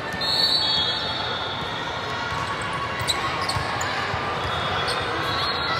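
Volleyball rally in a large hall: the ball is struck with a few sharp knocks, sneakers squeak on the sport court, and players and spectators keep up a steady, echoing murmur of voices.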